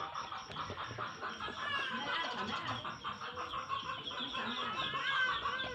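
Many birds chirping in a dense, overlapping chorus of short calls, over a steady run of high ticks at about five a second.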